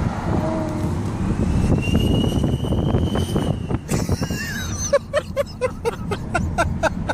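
2014 Ford Focus engine running with an aftermarket exhaust turbo whistle: a high whistle rises and then holds steady for a couple of seconds. Near the end comes a rapid run of short pulsing sounds, about four a second.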